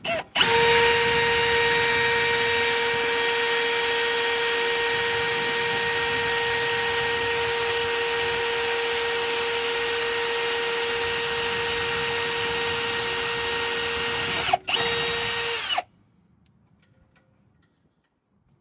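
Power drill running with a steady whine while drilling holes, for about fifteen seconds, with a momentary break near the end before it cuts off suddenly.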